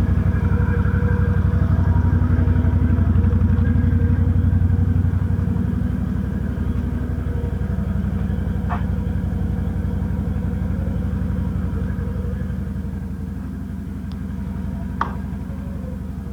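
Can-Am Outlander ATV engine idling steadily while it dries out a radiator that was hosed out after overheating and has just been refilled. The engine gets a little quieter after about five seconds, and there are a couple of faint clicks.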